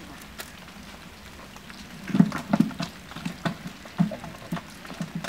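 A fish and a cast net being handled on the bamboo-slatted floor of a wooden boat: irregular soft thumps and light clicks, starting about two seconds in.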